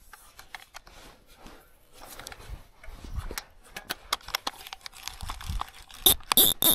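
Irregular clicks, knocks and rattles from a fishing rod and reel being handled while a lure is snagged on a rock, with a few louder scraping bursts near the end.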